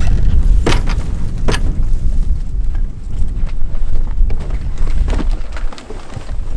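Bulky gear bags being loaded and shoved into an enclosed cargo trailer, with two sharp knocks in the first second and a half and a few softer knocks later, over a steady low rumble.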